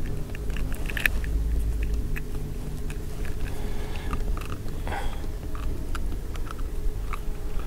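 Small clicks, taps and rustles of a little northern pike being handled and unhooked in the boat, over a steady low hum.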